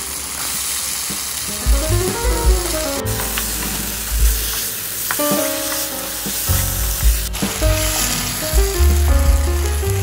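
Tomatoes and potato chunks sizzling as they fry in oil in a nonstick pan, stirred with a wooden spatula. The sizzle shifts abruptly twice. Soft background music plays over it.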